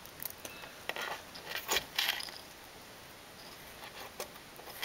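Faint, scattered clicks and rustles of hands handling thin insulated wires and twisting their bare ends together, a cluster of ticks in the first two seconds and a few more near the end.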